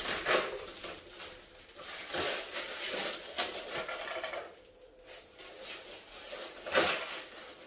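Rustling and light handling noises of packaging and parts being handled, with one sharper knock near the end.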